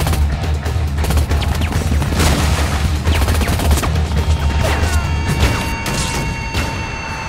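Rapid submachine-gun fire in repeated bursts, with a couple of falling whines in the second half, over a dramatic film score.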